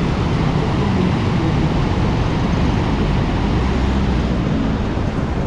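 Floodwater rushing through and over a river sluice gate: a loud, steady rush of churning water.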